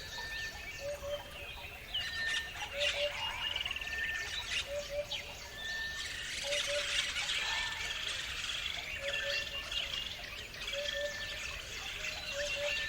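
Many birds chirping and trilling together. A low two-note call repeats about every two seconds beneath the higher chirps.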